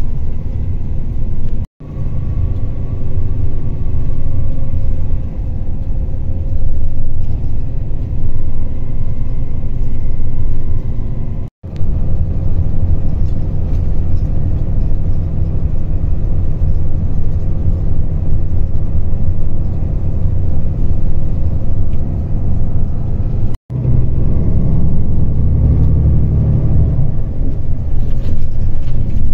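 Steady low rumble of road and engine noise inside a moving vehicle. It cuts out abruptly three times for a split second.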